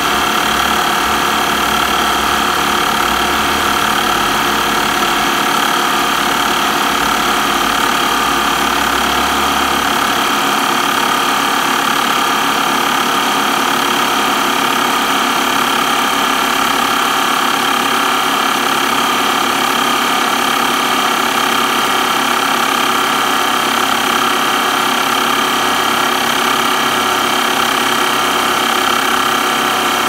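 Small electric air pump running steadily under load, building pressure in a closed line as the gauge needle climbs.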